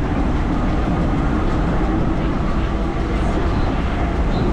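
BMT AB Standard subway car running along the track: a steady rumble of wheels on rail with a steady hum underneath.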